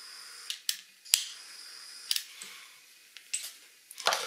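Several sharp clicks and clacks of small metal hand tools being handled and set down on a workbench cutting mat, the last ones near the end as a pair of side cutters is laid down.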